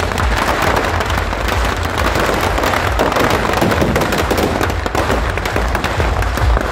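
Firecrackers packed inside a burning Ravana effigy going off in a dense, unbroken crackle of rapid bangs.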